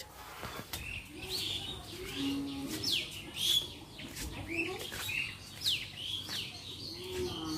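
Birds calling repeatedly: short chirps that sweep downward in pitch, about one or two a second.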